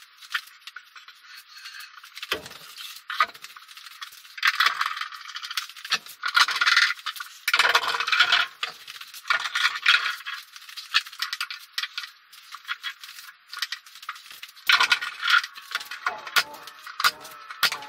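Metal clamps clinking and rattling as they are handled and tightened, in quick irregular runs that are loudest in the middle and near the end.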